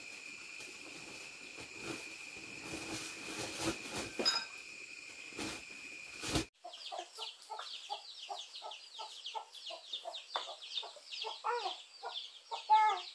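Cloth and a plastic bag rustling and knocking as clothes are packed, over a steady high whine. After a sudden cut about six and a half seconds in, a hen clucking with chicks peeping rapidly.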